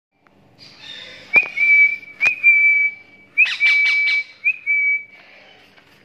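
Four high, steady whistled notes, all at the same pitch. Each is held about half a second to a second and starts with a short upward flick. Sharp clicks come with the first two, and a few quick chirps fall around the third.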